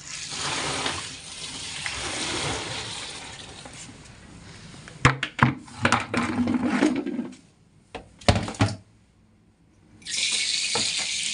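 Water running and splashing, with a cluster of sharp knocks and clatters about halfway through, a brief lull, then running water again near the end.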